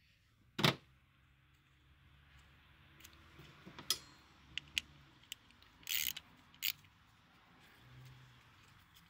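A small hand ratchet with a number 8 socket is being handled on a bolt. There is a sharp metallic click about a second in, then scattered light clicks and a couple of short ratcheting rasps around the middle.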